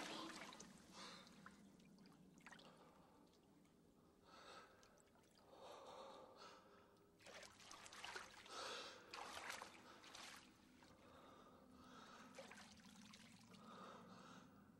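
A man's quiet, shaky gasps and heavy breaths, coming in short bunches with pauses between.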